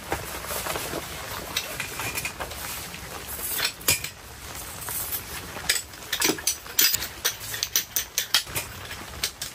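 Light clicking and clattering of a folding camp table and chair's frame pieces being handled and put together, with a quick run of clicks in the second half.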